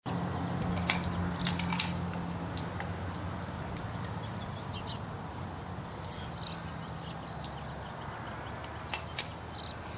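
An engine running steadily at low level, with a few sharp metallic clinks about a second in and twice near the end, and birds chirping.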